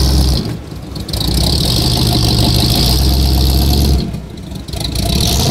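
Oldsmobile Cutlass V8 running loud at the exhaust, held at raised revs for long stretches and falling back briefly twice, about half a second in and about four seconds in.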